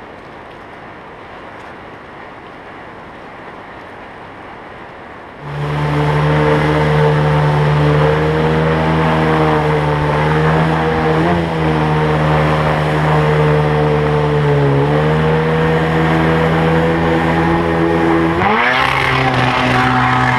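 Rushing river water for about five seconds, then a cut to a Mercury 25 jet outboard motor running hard as the boat climbs whitewater rapids. The engine note holds steady, dips briefly twice, and rises near the end as the throttle goes up.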